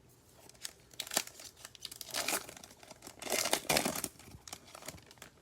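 A Prizm basketball card pack's foil wrapper being torn open and crinkled: a run of irregular crackling and tearing, loudest about three to four seconds in.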